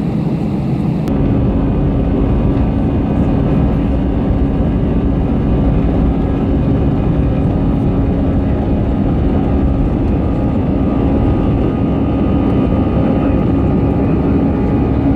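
Airliner turbofan engines at takeoff power, heard from the cabin beside the wing: a loud, steady rumble with a whining tone over it through the takeoff roll and climb-out. About a second in, the sound steps up and the whine sets in.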